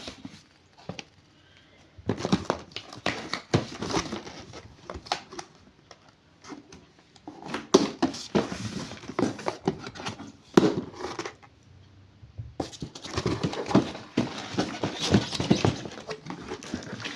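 Packaging being handled during unboxing: rustling and crinkling with clicks and light knocks, in three long bursts with short pauses between them.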